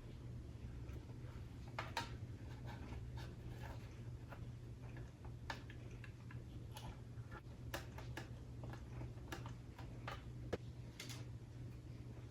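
Scattered light clicks and taps as gauges and small parts are handled and fitted into a truck's instrument cluster housing, over a steady low hum.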